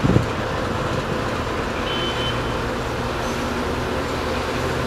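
TEP70 diesel locomotive's V16 diesel engine working as it pulls a passenger train away, a steady low drone. A brief gust of wind hits the microphone at the start.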